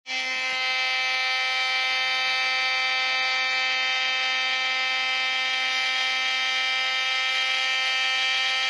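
Electric oscillating multi-tool buzzing steadily at one constant pitch as its scraper blade works old Sikaflex sealant off the boat's hull.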